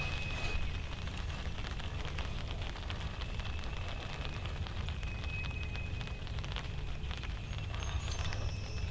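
Low, steady wind rumble with a dense crackling rustle, and a few thin, held high whistle-like tones.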